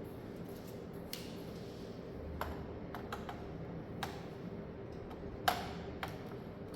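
Scattered light clicks and taps of small computer hardware being handled, about seven in all, the sharpest about five and a half seconds in, over a faint steady hum.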